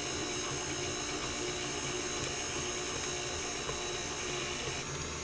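Electric stand mixer running steadily on a low stirring speed, its paddle mixing cake batter.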